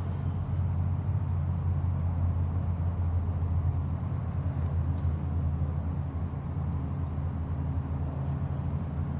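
Insect chirping steadily in a high, even rhythm of about four pulses a second, over a low, steady hum.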